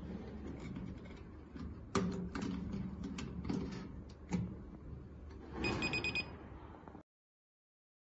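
Clicks and knocks of a digital safe-lock keypad being seated and pressed by hand, then one short electronic beep about five and a half seconds in. The beep is the keypad's power-on signal after its 9V battery is connected.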